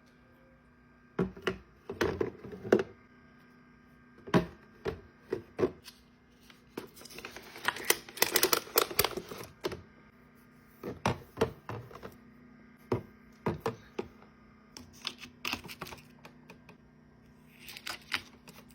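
Irregular knocks and clicks of small objects being handled and set down, with a stretch of rustling about eight seconds in and again near the end, over a faint steady hum.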